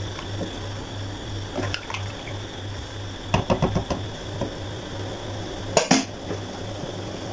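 A wooden spatula stirring rice through boiling stock and knocking against the rim of a metal cooking pot: a quick cluster of knocks about three and a half seconds in and two sharp taps near six seconds, over a steady low hum.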